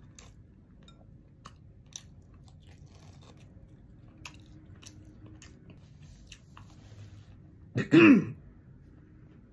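Close-up eating sounds: soft chewing with scattered wet mouth clicks and smacks as seafood boil is eaten. About eight seconds in comes one short, loud throaty vocal burst with a falling pitch.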